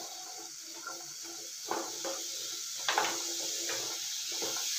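A wooden spatula stirring black chickpeas in spiced oil in a non-stick frying pan: a few short scrapes and knocks against the pan, the sharpest about three seconds in, over a steady frying sizzle.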